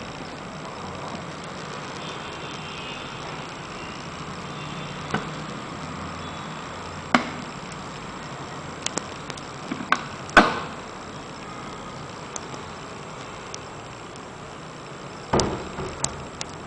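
Scattered sharp metal clicks and knocks from an aluminium-framed acrylic case's latches and lid being worked, several close together about ten seconds in and another small cluster near the end, over a steady hiss.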